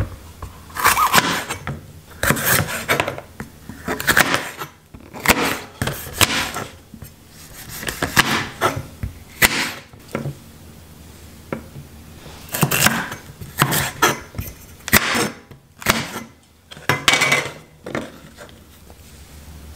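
Kitchen knife slicing bell peppers on a wooden cutting board: about a dozen crisp cuts and knocks of the blade on the board, coming irregularly a second or so apart.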